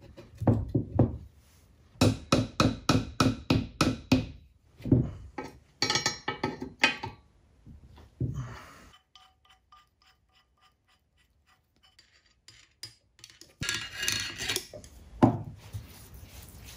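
Metal knocks as a steel drill press column is seated in its cast-iron base, then a quick run of ratchet wrench clicks, about four a second, as the base bolt is tightened. Near the end, a loud scraping clatter of a heavy cast-iron part being handled.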